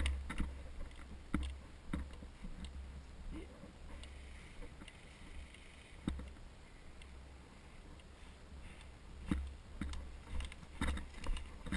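Handling and movement noise from a body-worn camera as the wearer repositions: scattered light knocks, rustles and footfalls over a steady low rumble on the microphone, sparse in the middle and busier again near the end.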